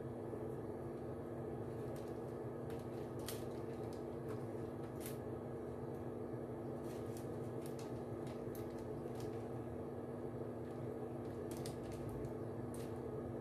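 Light, scattered clicks and crinkles of a silicone basting brush dabbing sauce onto roast chicken in a crumpled aluminium-foil lining, over a steady mechanical hum.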